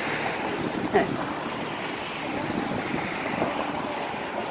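Steady hiss of road traffic going by, with a single sharp click about a second in.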